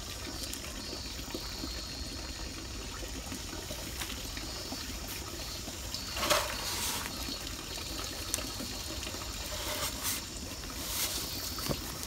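A steady rushing noise throughout, with a rustle of plastic mulch sheeting and a woven basket being set down on it about six seconds in, and a few more short rustles near the end.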